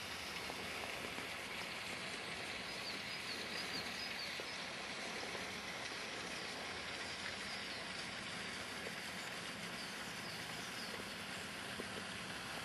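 Steady outdoor background noise, an even rushing hiss, with a few faint short high-pitched chirps a few seconds in and again later.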